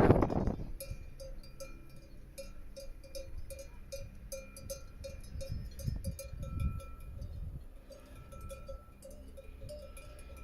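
Cowbells worn by cattle clanking over and over, several strikes a second with a ringing metallic tone. A brief loud rush of noise opens the stretch.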